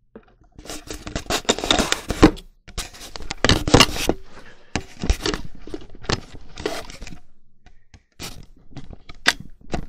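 Handling noise from a camera being moved and set down: irregular scraping, rustling and sharp knocks against the microphone for several seconds, then a few separate knocks near the end.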